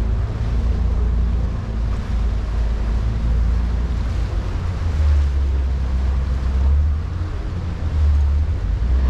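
Vaporetto water bus underway: a steady deep engine drone with water washing past the hull and wind buffeting the microphone.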